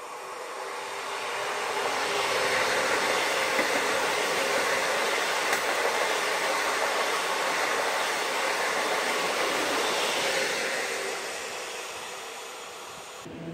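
PKP Intercity ED161 (Pesa Dart) electric multiple unit passing through a station. The wheel and rail noise swells over about two seconds, holds loud as the carriages go by, then fades away near the end.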